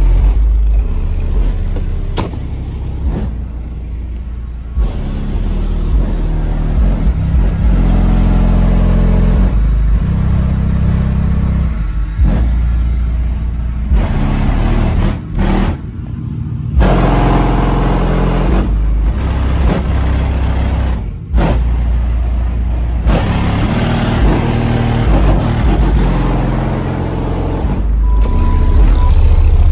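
Bass-heavy music played loud through a car audio system's subwoofers, with deep bass notes that shift in steps. The music briefly cuts out twice near the middle.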